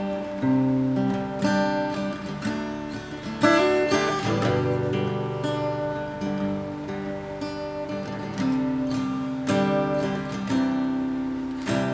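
Yamaha cutaway acoustic guitar played solo, ringing chords picked and strummed, with a louder strum about three and a half seconds in and another near the end.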